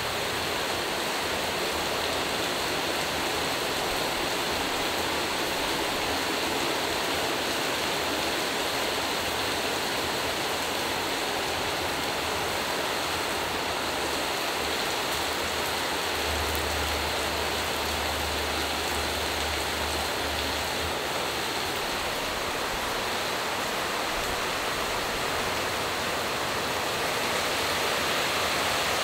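Steady rushing hiss of water outdoors, even and unbroken, with a faint low hum for a few seconds past the middle.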